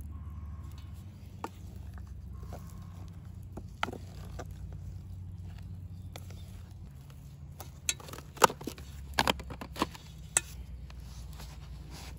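Wooden spatula stirring and scraping sticky bread dough in a stainless steel bowl, with soft scattered ticks. A handful of sharper clicks and taps come about two-thirds of the way through. A steady low rumble sits underneath throughout.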